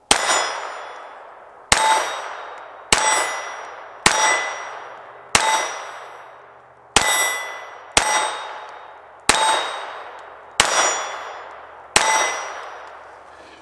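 Ruger LCP II .22 LR pistol firing ten shots at a steady pace, about one to one and a half seconds apart. Each shot is followed by the ring of a steel plate target being hit, fading away before the next shot.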